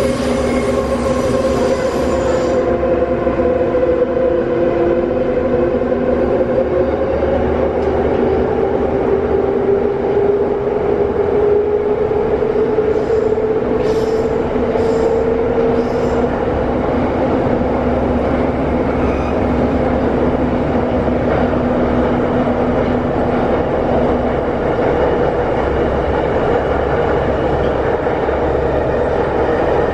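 Soviet-built Wagonmash series 81 metro train (81-572.2/81-573.2 cars) running between stations, heard from inside the car: a steady rumble of wheels on rails under a motor whine. The pitch of the whine sags and then climbs again about halfway through as the speed changes, with a few faint ticks around the middle.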